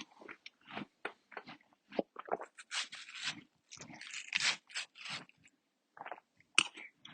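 Watermelon being bitten and chewed close up: crunching in quick, irregular bites, with a short pause near the end.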